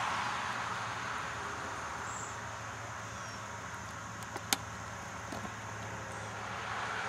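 Steady hiss of rain over a faint, low, steady hum, with a single sharp tap about four and a half seconds in.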